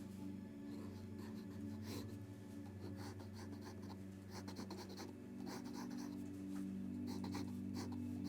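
Drawing strokes scratching on paper, short and irregular, some in quick runs, over a steady low hum.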